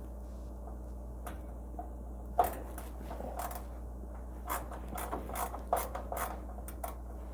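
Handling noises of work on an appliance panel: a sharp knock about two and a half seconds in, then a run of short clicks, scrapes and rubs. A steady low hum lies underneath.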